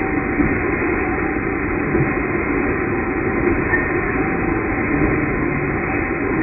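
Precor treadmill running, a steady mechanical rumble of its belt and motor under a runner.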